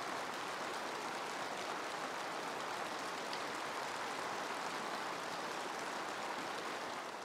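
A large crowd applauding steadily, a dense even clatter of many hands, starting to die away right at the end.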